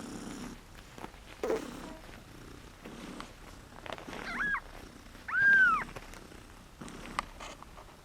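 Domestic cats purring, broken by two high, arched kitten mews, one about four seconds in and a louder one about five and a half seconds in.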